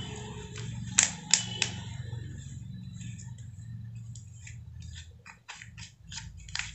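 A hand rubbing across a plastic-covered sheet to wipe off marker writing, making short scraping strokes that come in quick succession near the end. Three sharp clicks come about a second in, over a steady low hum.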